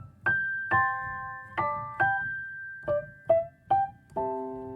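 Outro music: a piano playing a slow melody of single struck notes, with chords near the end.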